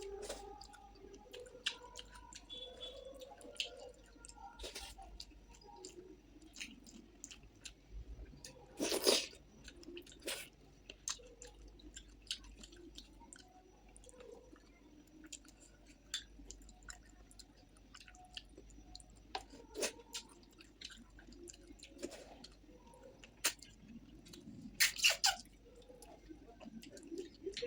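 Close-up chewing and wet mouth sounds of a person eating rice with fish curry: scattered soft smacks and clicks, with louder noises about nine seconds in and again near 25 seconds.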